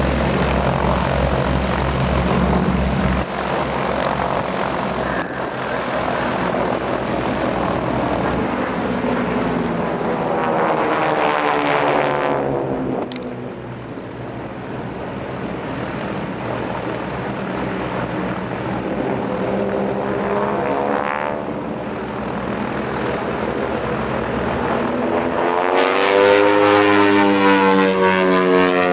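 Propeller airplane flying display passes: a steady engine drone with the propeller note sweeping in pitch as the aircraft goes by, several times, loudest near the end.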